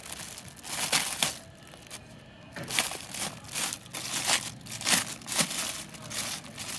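Packaging crinkling and rustling in irregular bursts as a toy mask is unwrapped by hand.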